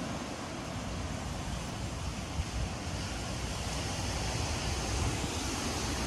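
Steady rush of hurricane wind through the trees, with wind buffeting the microphone in a low rumble, slowly growing louder.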